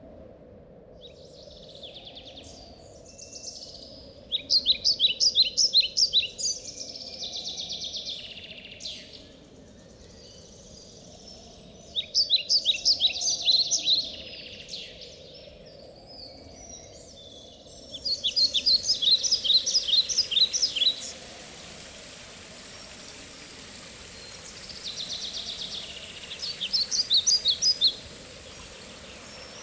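A songbird singing, four phrases of rapid repeated high trilled notes a few seconds apart, over a steady low background rush.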